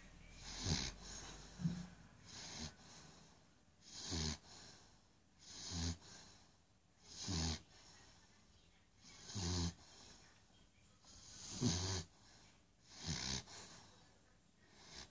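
Four-month-old pit bull puppy snoring in its sleep, about eight snores, one every one and a half to two seconds, each a low rattling snore with a breathy hiss.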